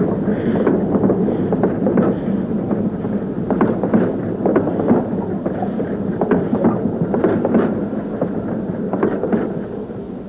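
Steam locomotive pulling away, its exhaust chuffing about once a second with metallic clanks and clicks from the running gear, fading near the end.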